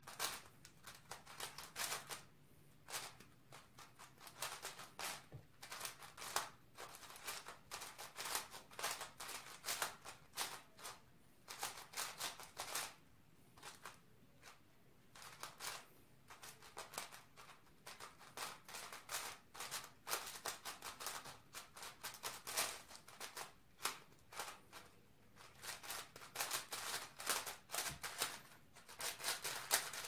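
A plastic speed cube being turned fast by hand: quick runs of light clicking from the layers snapping round, in bursts broken by short pauses.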